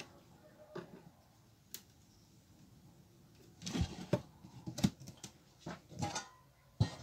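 A few faint clicks, then a run of wooden knocks and short scrapes as an OSB board hive cover is lowered and settled shut over the hive. A metal bee smoker is then handled on the board, and a sharp knock comes just before the end.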